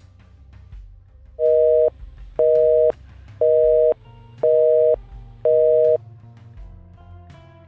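Telephone busy signal: five loud two-tone beeps, about half a second each, one a second, over faint eerie background music.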